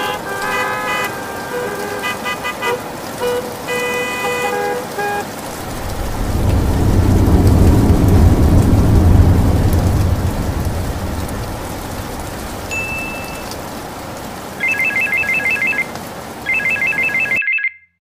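Sound-effect track: car horns tooting and beeping, then a long low thunder rumble that swells and fades, over a steady rain hiss. Near the end a telephone ringtone trills twice, then the sound cuts off.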